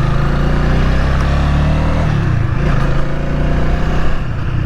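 2024 Honda Rebel 300's single-cylinder engine running under way, its pitch dipping and coming back up about two seconds in.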